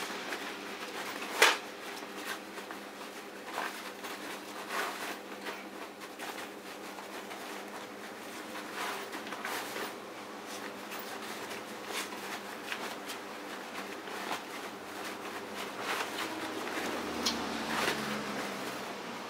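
A dog nosing, pawing and tugging at a pile of cloth work jackets: rustling fabric with scattered clicks and taps, one sharp click about a second and a half in, over a steady low hum.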